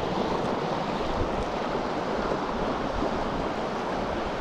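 Steady rush of a small rocky mountain creek running over riffles and into a plunge pool.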